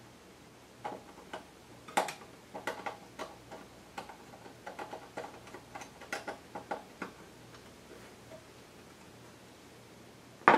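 Hand screwdriver turning and seating screws in a sheet-metal computer case: a run of small, irregular metallic clicks and ticks that stops about seven seconds in, with one sharper click at the very end.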